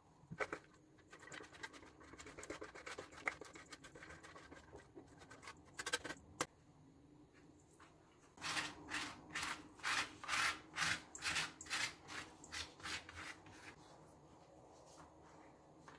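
Fork scratching and scraping as crumbly cheese filling is spread over thin yufka pastry sheets, with a few light clicks. Then a run of about a dozen quick rustling strokes, two to three a second, over the papery dough sheets as they are folded and brushed.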